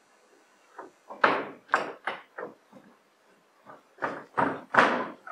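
A run of sharp percussive knocks or stamps, each with a short echo: four quick ones about a second in, then a pause, then three more, the loudest near the end.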